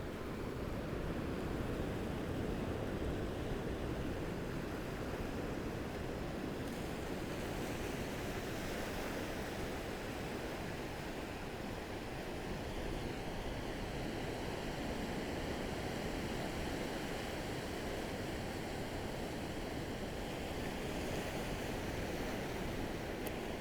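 Gentle ocean waves lapping and washing onto a beach, a steady rush of surf with only slight swells in loudness.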